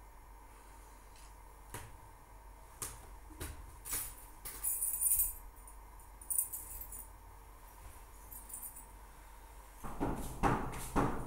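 Bedding and blanket rustling in short bursts with a few soft clicks as someone gets out of bed, then a run of louder knocks and scuffs near the end, like footsteps on a tiled floor.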